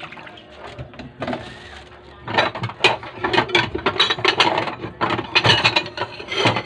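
Oregano leaves being washed by hand: a faint hiss of water, then from about two seconds in a fast, dense run of clicking, rubbing sounds as the leaves are handled.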